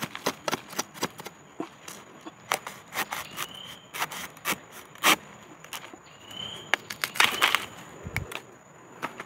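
Irregular sharp cracks and crackling in dry bamboo leaf litter as a young bamboo shoot is worked free and broken off at its base, with a denser run of snaps about seven seconds in and a dull thump just after. Under it runs a steady faint high insect drone, and a short rising chirp comes twice.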